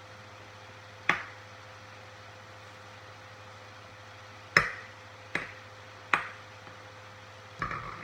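Metal spoon hanging from a string, knocking against a table: four separate sharp clinks with short ringing, then a quick clatter of several knocks near the end.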